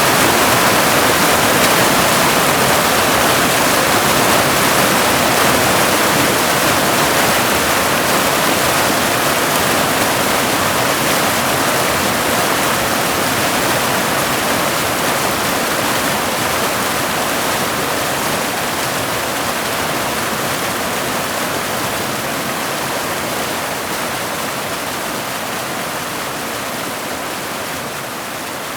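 A waterfall's steady rush of falling water, slowly fading out.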